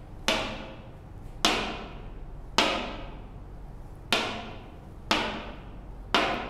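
A marker tapping on a whiteboard: six sharp taps about a second apart, each with a short ringing decay, keeping the beat for a word-by-word reading drill.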